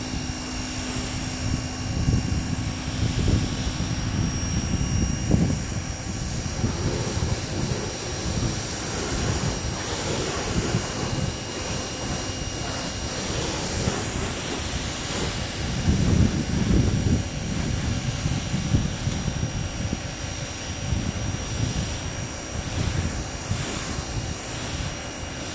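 Pressure washer running with a steady whine while its spray hisses onto a truck's hood, rinsing the soap off the paint. The whine drops away right at the end as the trigger is let go.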